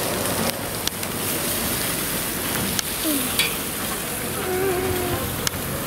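Racks of ribs sizzling on a hot grill, a steady crackling hiss, with a few sharp clicks of metal tongs against the grill grate.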